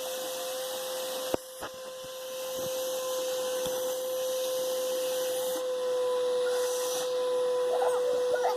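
A small appliance motor running steadily: an even whir with a constant hum. A sharp click comes about a second and a half in, and faint wavering squeaks sound near the end.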